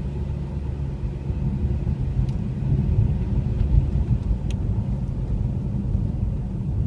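Steady low rumble of a car driving on a snow-covered road, heard from inside the cabin: engine and tyre noise. There are a couple of faint ticks around the middle.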